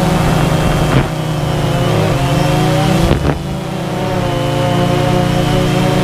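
DJI Phantom 2 quadcopter's electric motors and propellers humming steadily as it hovers, heard from the camera on board. The pitch wavers for a couple of seconds in the middle, with two short bumps about a second and about three seconds in.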